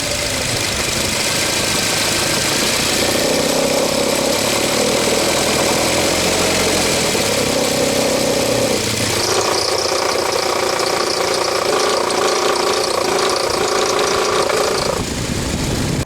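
Nissan NV200's MR20DE four-cylinder petrol engine running with a loud, diesel-like knocking, its pitch shifting about nine seconds in. The owner first took it for piston slap but traces it to a stretched drive belt and its tensioner.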